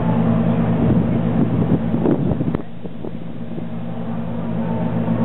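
Ferry's engines running with a steady low hum. Wind buffets the microphone, then drops away about two and a half seconds in.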